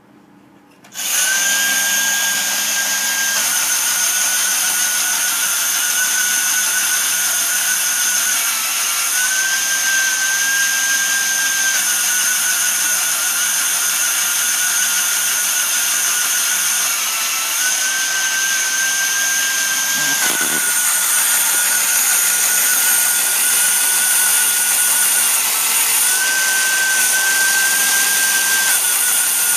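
Vintage American Airlines toy jet airliner switched on about a second in, running with a steady hiss and a high whine that steps slightly up and down in pitch every few seconds.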